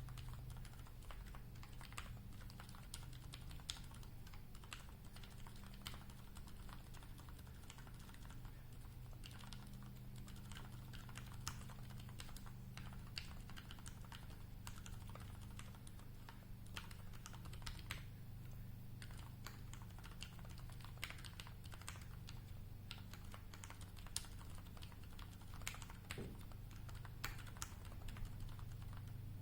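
Continuous typing on a custom mechanical keyboard: an aluminium Singa V2 case with a foamed brass plate, lubed ZealPC Roselio 67g silent linear switches and GMK keycaps, giving soft, rapid, irregular key presses. A steady low hum sits underneath.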